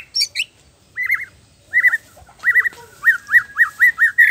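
Male white-rumped shama singing: short, clear looping whistles in quick clusters of two or three, turning near the end into an even run of about six repeated notes, roughly three a second.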